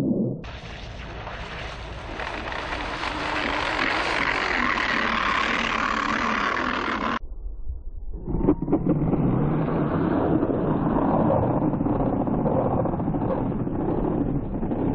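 RC snowmobile skimming across shallow flood water, its track churning up spray. First a steady bright hiss of water spray, heard close up. Then, after a short break about seven seconds in, a steady lower churning of motor and water that runs on.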